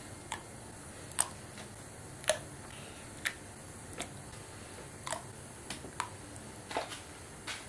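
Bouillon cubes dropped one at a time into a large pot of water, each landing with a short plop, about one a second, around ten in all.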